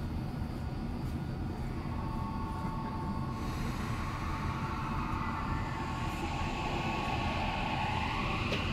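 Toei 5300 series subway train running, heard from inside the car: steady rumble of wheels and motors with the whine of its Mitsubishi GTO inverter. Near the end the whine rises in pitch.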